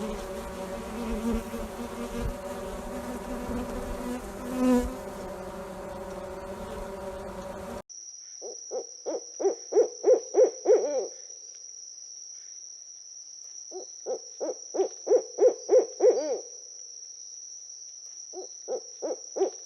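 Steady buzzing drone of flying insects. After a sudden cut, a bird gives three bouts of rapid hooting notes, about ten to a bout and growing louder through each, over a steady high-pitched insect trill.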